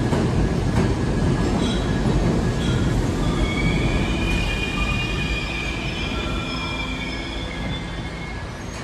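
New York City subway train on the BMT Brighton Line running through the station: a low rumble that slowly eases off, with the wheels squealing high on the rails from about two seconds in.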